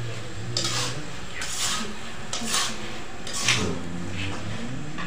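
A steel spoon scraping and clinking against stainless steel plates while rice is served, about six short strokes.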